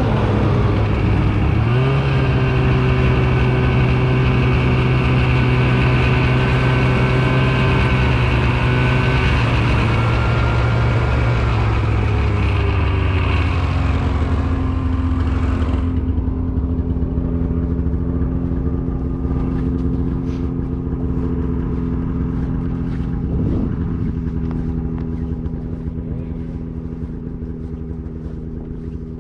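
Two-stroke snowmobile engine running at a steady speed while riding. It eases off to a lower, steadier note about halfway through, and the hiss of travel drops away. The engine grows slightly quieter near the end.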